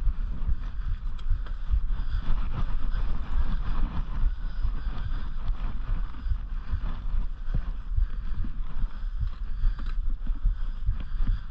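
Wind buffeting the microphone of a camera riding on a mountain bike, over the steady noise of tyres rolling on a dirt trail, with scattered small clicks and knocks from the bike.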